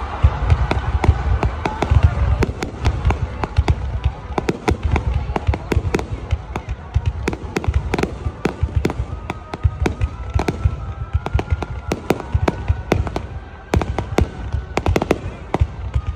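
Aerial fireworks shells bursting overhead in quick succession: a dense run of bangs and crackles over a low rumble.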